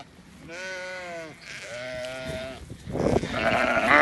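Sheep bleating, two long calls one after the other, followed near the end by a rustling noise.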